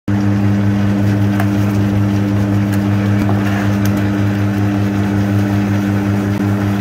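Industrial vegetable cutting machine's electric motor running, a steady low hum with faint clicks.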